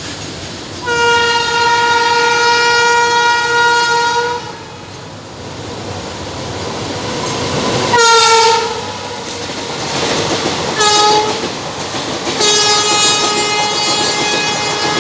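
Goa SF Express passing through the station at speed without stopping, its locomotive horn sounding over the rising rumble and clatter of the train. There is a long blast, then a short one whose pitch falls as the locomotive goes by, another short blast, and a last long blast at a lower pitch.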